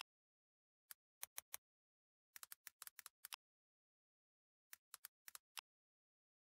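Faint computer keyboard keystrokes, typed in three short bursts of quick clicks with dead silence between.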